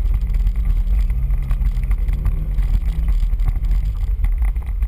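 Off-road 4x4's engine running under way on a dirt trail, a steady low rumble with an engine hum that rises and falls a little in pitch, mixed with road and wind noise.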